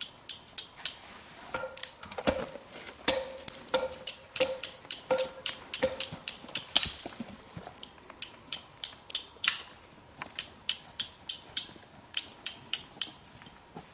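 Steel being struck against flint again and again in quick strokes: sharp metallic clicks about three a second. For a few seconds near the start the strikes come slower and each one rings briefly, and there is a short pause a little past the middle.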